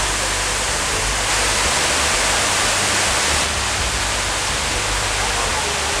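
Steady rush of falling water, an even hiss-like noise that drops slightly about halfway through.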